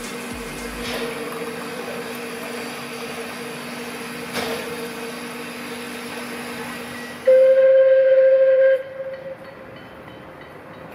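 Narrow-gauge steam locomotive standing under steam: a steady hiss with a low hum and a single clank about four seconds in. About seven seconds in comes one loud steam-whistle blast on a single note, lasting about a second and a half, which then dies away to a quieter background.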